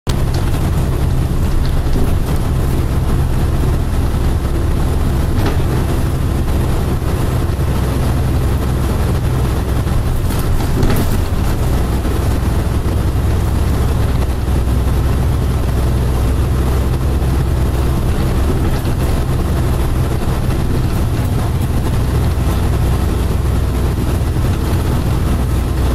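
Hakodate city tram running along street track, heard from inside the car as a steady low rumble. There are a couple of brief sharp clicks, about five and eleven seconds in.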